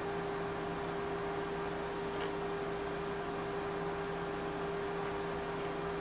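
Steady electrical hum of running bench electronics: two constant low tones over an even hiss, with nothing else happening.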